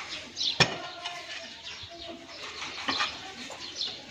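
Birds in the background: pigeons or doves cooing low and small birds giving short high chirps. A single sharp click comes a little over half a second in.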